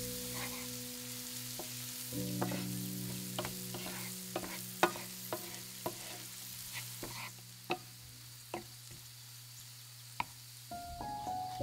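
Diced shallots sizzling in oil in a nonstick frying pan, stirred with a wooden spatula that knocks and scrapes against the pan in a string of sharp clicks.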